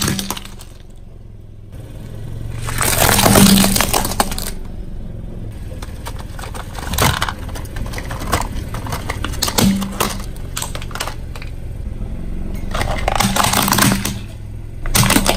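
Hollow plastic toys cracking and crunching under a car tyre on concrete: a run of snaps and crunches, loudest about three seconds in, with more sharp cracks scattered through.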